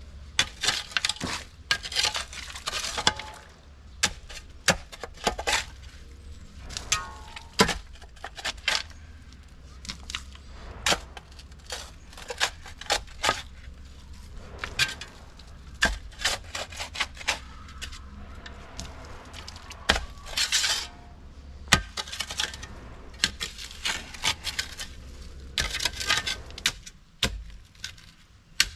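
Shovel work in stony dirt: irregular sharp clinks and knocks of the blade, with several longer scraping bursts as it is driven in and drags through soil and gravel.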